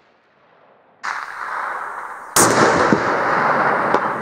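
A single sharp crack of a Forbes 24B .30-06 rifle shot about two seconds in, over a steady rushing noise. A faint sharp tick follows about a second and a half after the shot.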